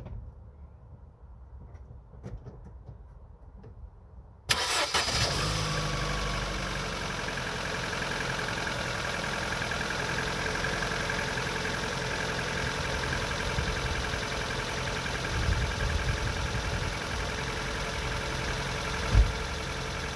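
A few faint clicks, then about four and a half seconds in a Mk6 Ford Fiesta's engine starts and settles into a steady idle, with a single short thump near the end.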